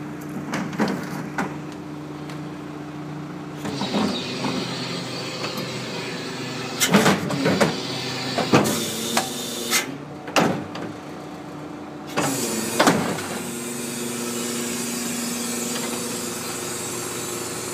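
Refuse truck's hydraulic bin lifter tipping a plastic wheelie bin: a steady engine and hydraulic hum that changes pitch about four seconds in as the lift starts, then several loud bangs and clatters as the bin is shaken over the hopper, and the steady hum again as it is lowered.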